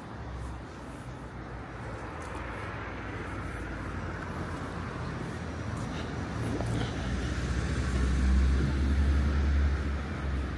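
A motor vehicle passing on the street, its engine rumble and tyre hiss growing louder to a peak near the end and then falling away, over street ambience.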